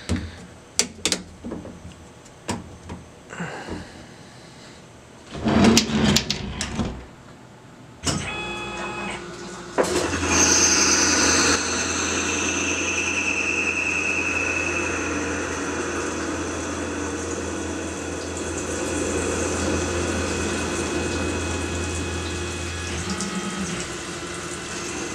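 Tormach SL20 CNC slant-bed lathe starting up and facing a 304 stainless steel bar, with flood coolant spraying on the work. A few clicks and knocks come first. About eight seconds in the machine starts running, and just before ten seconds a steady rush of coolant and a spindle hum come in and hold, while some high tones fall in pitch.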